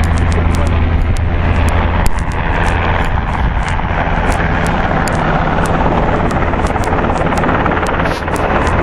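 Steady, loud rumble and rush of wind over the microphone on a carrier flight deck, mixed with the engine noise of an approaching formation of Navy jets.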